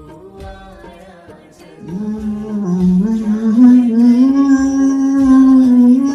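Devotional bhajan music: a soft instrumental accompaniment, then from about two seconds in a voice holds one long, loud note of the melody that steps upward in pitch.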